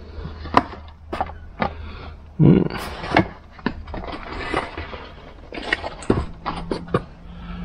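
Rummaging among hard parts: a string of sharp knocks and clatters with scraping between them, the loudest about two and a half seconds in, over a faint low steady hum.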